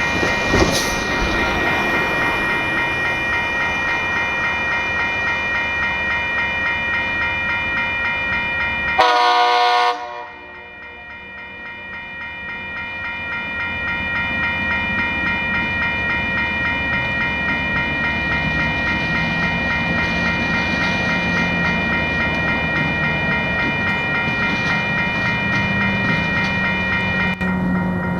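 Tasrail diesel locomotive approaching. About nine seconds in it sounds one loud horn blast lasting about a second, and its engine grows louder toward the end. Throughout, a steady ringing pulses about twice a second.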